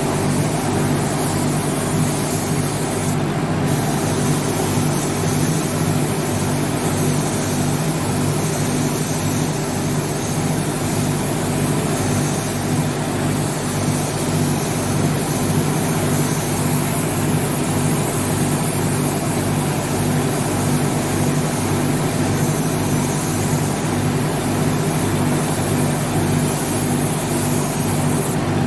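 A machine running steadily: a low motor hum with an even hiss over it, briefly dipping in the upper range about three seconds in and again near the end.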